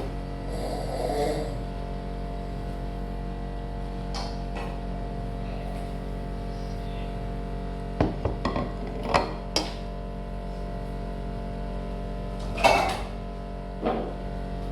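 Cutlery knocking and clinking against a plate in a few short clusters, the loudest about thirteen seconds in, over steady background music.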